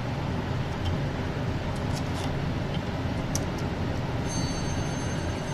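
Steady low background rumble with a few faint, light clicks of small metal parts being handled.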